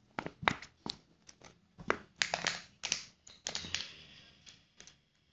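Irregular clicks and taps from handling a measuring cup and glue bottle while glue is measured out, a dozen or so sharp ticks, thinning out near the end.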